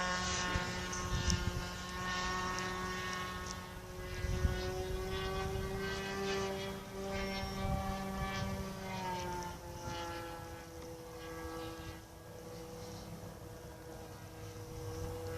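Glow-fuel engine of a radio-controlled model airplane running in flight, a steady buzzing note that drops in pitch about two-thirds of the way through and grows fainter toward the end.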